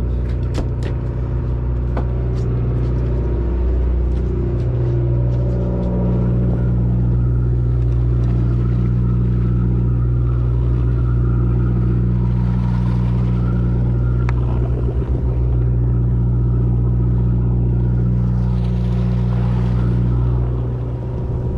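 Fishing boat's engine running steadily: a low, even drone of several held tones, with a few light clicks near the start.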